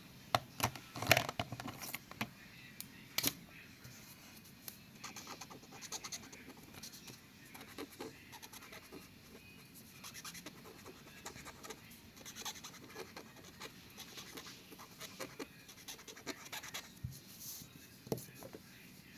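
Coloring on paper: a drawing tool scratching in quick back-and-forth strokes, with a few sharp clicks in the first few seconds.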